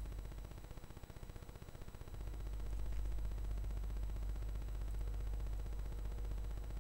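Steady low hum and background noise of the recording, with a couple of faint clicks.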